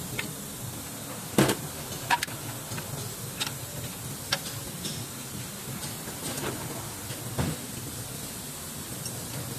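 Brake shoe hardware being fitted with pliers onto a Toyota Land Cruiser's rear backing plate: scattered sharp metal clicks and clinks of the pliers, springs and shoe, over a steady hiss. The loudest clicks come about a second and a half in and just after two seconds.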